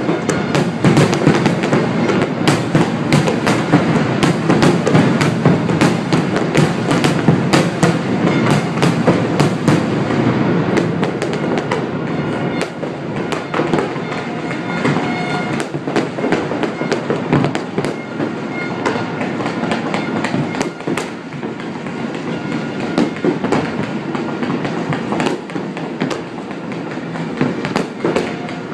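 Fireworks display: a dense barrage of rapid bangs over a continuous rumble, thickest in about the first ten seconds and thinning to scattered bangs after that.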